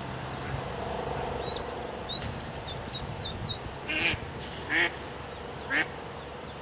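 A duck quacking, with short sharp quacks about once a second in the second half. Thin high chirps from small birds come earlier, along with a buzzy call near the start.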